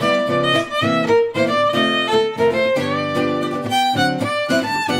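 Background music: a fiddle playing a quick, lively tune, with a guitar accompaniment.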